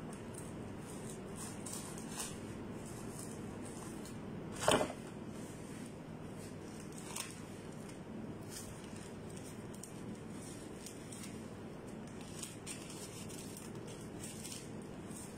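Faint rustling and crinkling of paper and plastic sandwich wrappers being handled, over a steady low hum, with one sharp knock a little before five seconds in and a lighter click a couple of seconds later.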